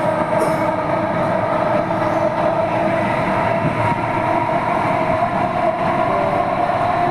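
Delhi Metro train running between stations, heard inside the carriage: a steady rumble of wheels on the track with a steady high-pitched whine over it.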